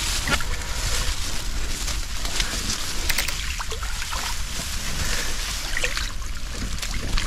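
Water sloshing and trickling as a submerged turtle trap is hauled up out of the river and drains, with a few light knocks or clicks around three seconds in.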